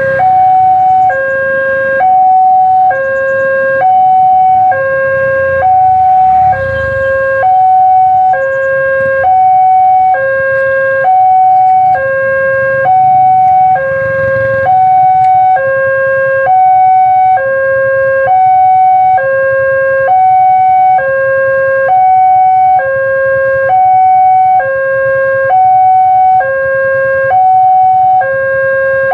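Railway level-crossing warning alarm from the loudspeaker on the crossing pole: a loud electronic two-tone signal, a short higher note then a longer lower one, repeating about every two seconds, warning of an approaching train while the barrier arms close. Motorcycle engines idle underneath.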